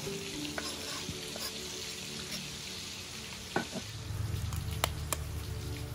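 Steady hiss of rain falling, with a few sharp clicks about three and a half and five seconds in.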